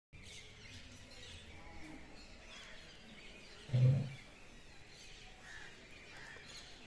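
Outdoor background with birds chirping. A brief low sound, like a voice, is heard about four seconds in.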